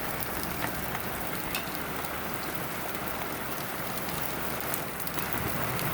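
Heavy thunderstorm rain with big drops pouring down and hitting the ground, a steady hiss dotted with sharp splats of single drops.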